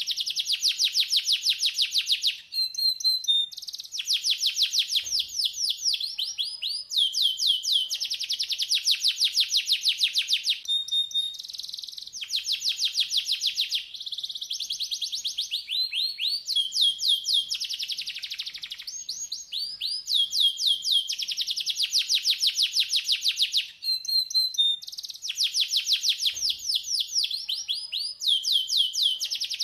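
Domestic canary singing a tutor (masteran) song: long rolling trills of rapid repeated notes in phrases of one to three seconds, broken by short pauses and now and then a brief steady whistle.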